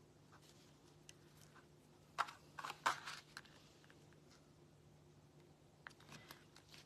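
Cardstock and paper pieces handled on a craft mat: a few short taps and paper rustles about two seconds in, over faint room tone with a steady low hum.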